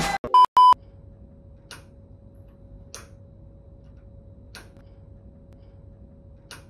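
Two short, loud electronic beeps at one steady pitch in quick succession. They are followed by a quiet steady hum with a few faint ticks.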